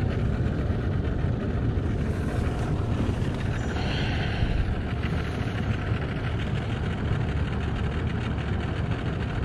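Outboard boat motors idling, a steady low rumble.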